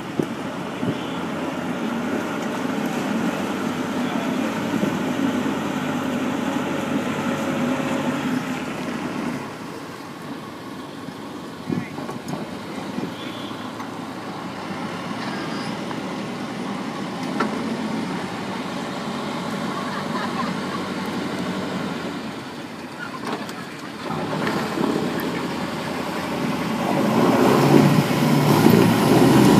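An engine running steadily under a haze of wind noise. It eases off for a stretch in the middle and grows louder near the end.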